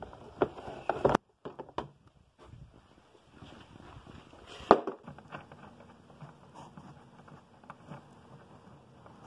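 Clicks, knocks and rustling from hands and parts being handled, with one sharp knock a little before halfway, then softer scattered ticks.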